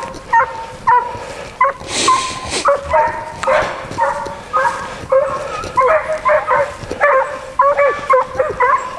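A pack of scent hounds baying and yelping in chorus, several short calls a second from more than one dog, as they give voice while hunting a fox. A brief rush of noise about two seconds in.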